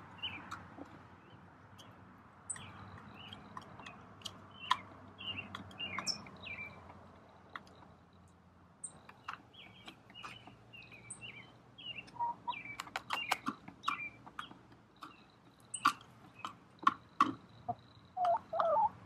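A small flock of hens moving about their run: short high chirps throughout, a run of sharp clicks in the second half, and a few lower clucking calls near the end.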